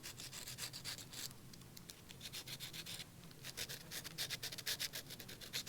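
Coarse-grit sandpaper rubbing back and forth over freshly applied filler around an automaton's mouth, a quick, light scratching of short strokes.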